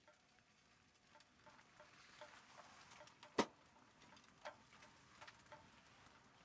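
Very faint, irregular small ticks and clicks over a low hiss, with one sharp click about three and a half seconds in.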